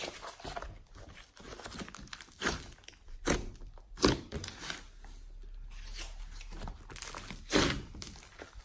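Glossy slime mixed with foam beads being squeezed and kneaded by hand: irregular sticky crackling and crunching, with a few sharper bursts, the loudest about four seconds in and again near the end.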